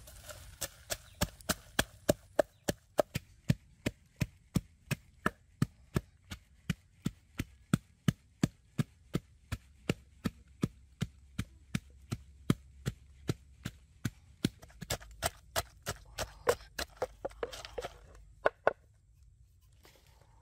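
Wooden pestle pounding red chilies, garlic and coarse salt in a wooden mortar: steady, evenly spaced thuds about two a second, stopping near the end.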